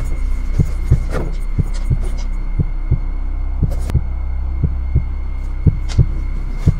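Tense film-score sound design: a low droning hum under a steady thumping pulse of about three beats a second, with a few sharp clicks.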